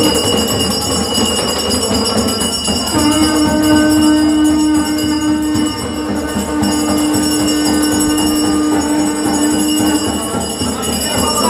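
Music with steady jingling percussion over long held notes.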